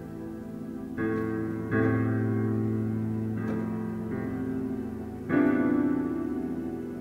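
Solo piano playing slow chords, a new one struck every second or so and left to ring and fade. The loudest chord comes about five seconds in.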